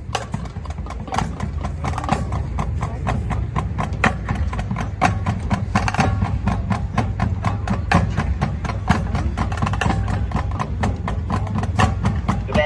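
Marching band percussion section playing a loud drum passage: dense, rapid, sharp drum and rim strokes over a heavy low drum sound, starting abruptly, with little melody in it.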